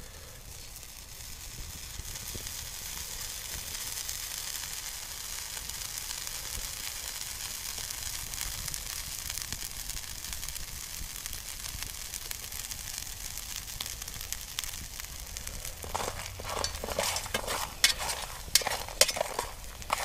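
Salted water sizzling off piñon nuts in a frying pan over a wood-burning stove, a steady hiss. Near the end a spoon stirring the nuts scrapes and clicks sharply against the pan.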